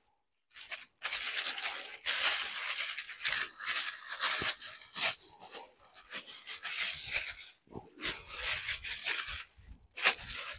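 Plastic bag rustling and crinkling as it is handled, in irregular bursts with short pauses.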